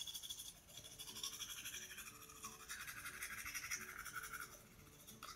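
A toothbrush scrubbing back and forth in quick, even strokes, as in brushing teeth, over faint background music.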